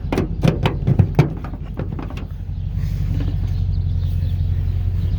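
An engine running steadily, with a quick run of clanks and knocks in the first second or so.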